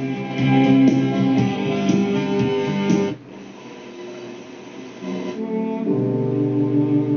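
Philips BDK394A radio playing guitar music through its loudspeaker. About three seconds in, the music cuts off as the station is tuned away, and the radio goes quieter. About five seconds in, a different station with steady held tones comes in.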